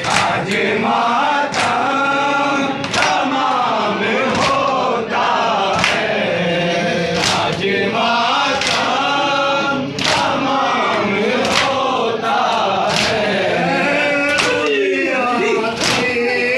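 Group of men chanting a noha, a Shia mourning lament, in unison, with the rhythmic slaps of matam (chest-beating) keeping time about once every one and a half seconds.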